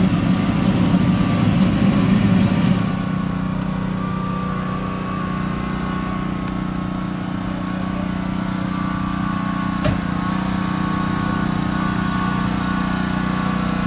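1975 Chevrolet Caprice convertible's V8 engine running, louder and rougher for about the first three seconds, then settling into a steady idle. A single light click about ten seconds in.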